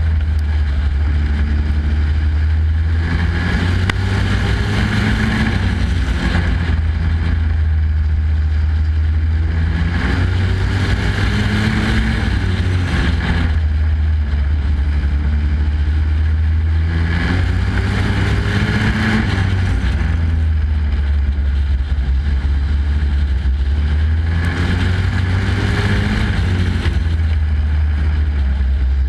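Super Pro race truck's engine heard onboard at racing speed, climbing on the straights and easing off into the turns about every seven seconds, over a steady low rumble.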